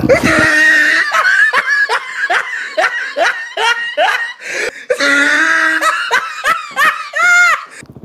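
Loud, hearty belly laughter: a run of short 'ha' bursts, two or three a second, each falling in pitch, ending in a longer drawn-out note near the end.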